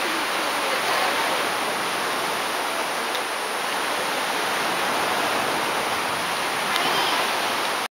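Steady hiss of ocean surf washing onto a sandy beach.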